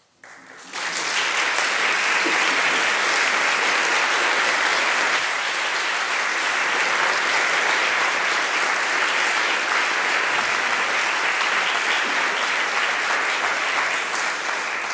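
Audience applauding, starting suddenly just under a second in, holding steady and beginning to ease off at the very end.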